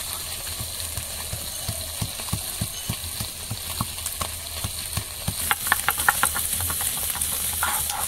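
Stone pestle crushing ginger on a flat stone grinding slab (Bengali shil-nora): a run of short dull knocks, about three a second. About five seconds in it changes to the pestle being rubbed back and forth over the slab, a gritty scraping, grinding the ginger to a paste.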